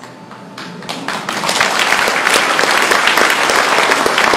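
Audience applauding. It starts thinly about half a second in and swells within about a second into steady, dense clapping.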